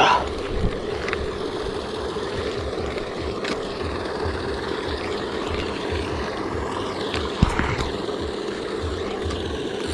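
Paddlewheel aerator running in the pond: a steady motor hum with churning water. Low irregular rumbles run underneath, and a single knock comes about seven and a half seconds in.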